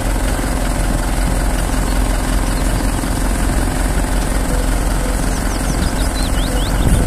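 Engine of a truck-mounted aerial work platform running steadily while its hydraulics raise the boom and basket, a constant hum over a low rumble.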